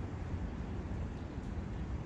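Steady rushing of a forest brook: an even, unbroken water noise with most of its weight in a low rumble.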